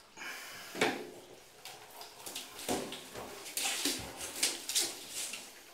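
A domestic cat crying out in distress while being bathed, several short calls, with bursts of splashing and scuffling between them.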